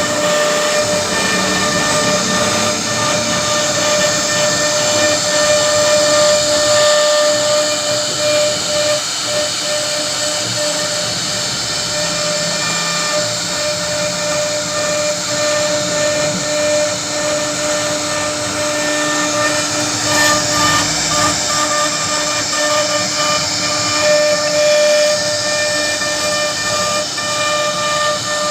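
CNC router spindle carving wood: a steady high whine over the hiss of the bit cutting.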